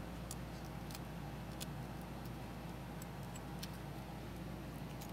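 Faint, scattered small clicks of parts and tools being handled while a MacBook Air is taken apart by hand, over a steady low hum.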